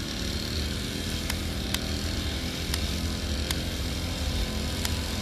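A small motor running steadily with a low hum, with a few sharp clicks scattered through it.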